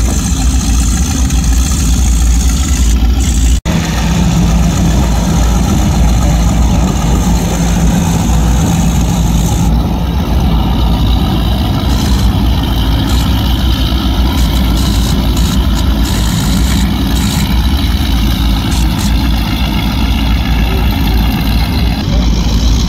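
Engines of high-performance offshore powerboats running at low speed as the boats pass one after another, a loud, steady, low engine sound with water wash, broken by a very brief dropout a few seconds in.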